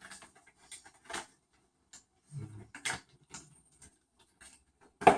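Scattered light clicks and taps, with a brief low murmur about two and a half seconds in and a sharper, louder sound near the end.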